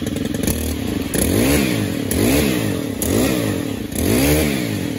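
Stihl FC95 edger's 4-MIX four-stroke engine idling, then revved four times on the throttle trigger, each rev rising in pitch and dropping back toward idle. The freshly replaced throttle control is working.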